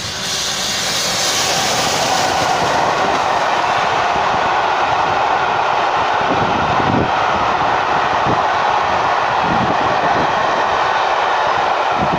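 Steam locomotive and its train of coaches passing close by, a loud steady rumble of wheels on rail. A high hiss in the first couple of seconds eases off as the engine goes by, and a few faint clicks follow as the coaches roll past.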